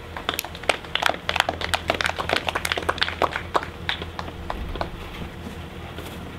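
Scattered hand clapping from a small group of people, dying away about four seconds in.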